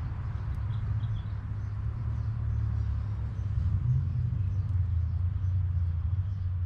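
Steady low rumble, with a few faint high bird chirps about a second in.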